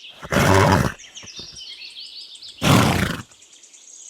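A horse snorting twice, two loud short blows about two seconds apart, with small birds chirping in the background.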